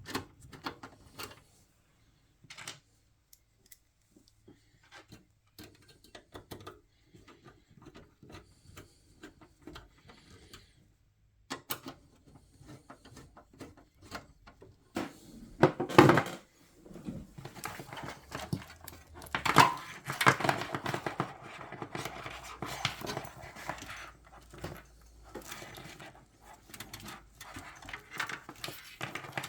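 Hands fitting a power supply into a metal PC case and plugging in its cables: scattered clicks, knocks and rattles of metal and plastic parts, sparse at first and busier later, with louder clunks about 16 and 20 seconds in.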